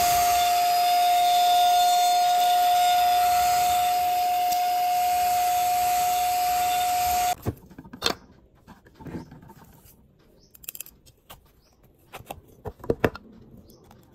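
Cordless handheld mini vacuum cleaner running, a steady whine over rushing air as it sucks up cat litter, then cutting off suddenly about seven seconds in. After that come scattered plastic clicks and taps as its clear dust cup and filter are taken apart.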